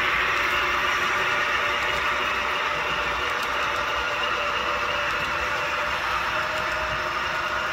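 HO scale model freight train of double-stack container well cars rolling past: a steady rolling noise of small metal wheels on the track, fading slightly.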